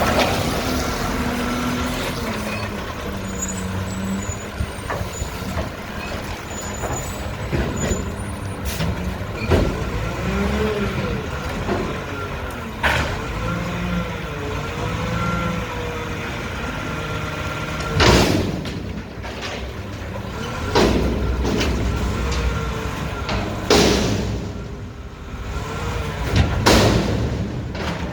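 Mack garbage truck with a McNeilus front-loader body, its diesel engine running and revving up and down. Four short loud bursts of air hiss come in the second half.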